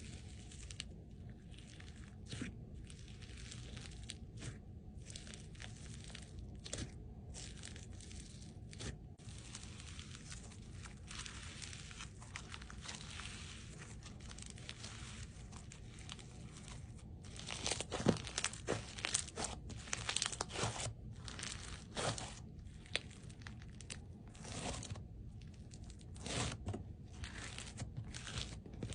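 Crunchy slime being squeezed and pressed by hand, giving quick runs of crackling, crinkly bursts. The crackling grows denser and louder a little past the middle, with another loud run near the end.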